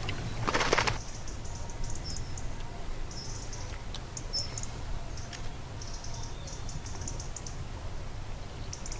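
Small birds chirping and twittering in short high-pitched phrases, over a steady low rumble of wind. A brief rustling noise comes in the first second.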